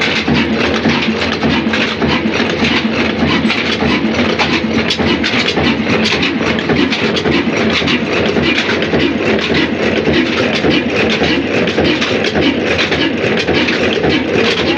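Large old Newsham stationary diesel engine running steadily, with a constant mechanical clatter from its valve gear and a heavy flywheel turning.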